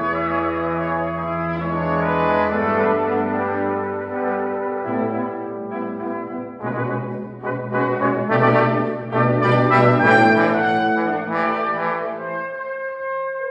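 Brass quintet playing: sustained chords from trumpets, horn, trombone and a low bass line, the texture growing fuller and brighter partway through.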